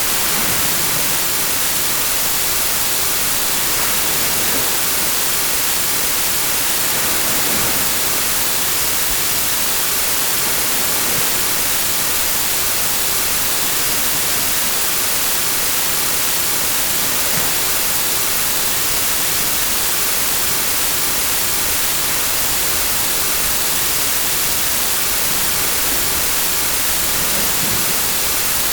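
Steady, unchanging hiss of white-noise static, brightest in the treble, with no breaks or surges.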